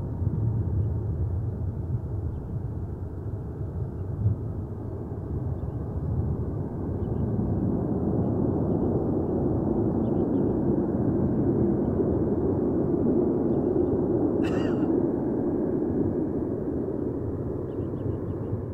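Jet airliner engine noise heard from a distance, a low, steady rumble that grows louder from about eight seconds in and eases off near the end. A brief high chirp cuts in about fourteen seconds in.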